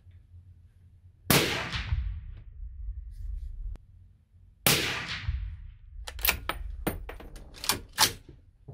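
Two shots from a suppressed Mauser M18 .308 Win bolt-action rifle, each a sharp bang with a trailing echo, about three and a half seconds apart. A quick run of sharp metallic clicks and clacks follows near the end.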